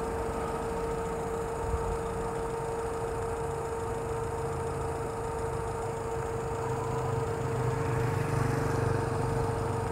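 Kia Morning's small petrol engine idling steadily after a remote start from the key fob, with a constant hum over the low rumble.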